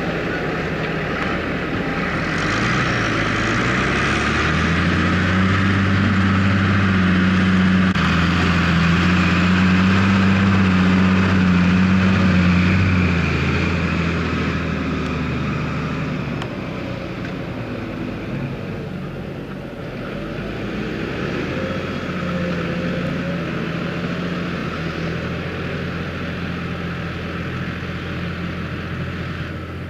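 Valtra tractor's diesel engine working with a Grimme potato harvester, a steady engine hum under a continuous mechanical rattle. The sound swells a few seconds in, is loudest for several seconds, then eases and holds steady.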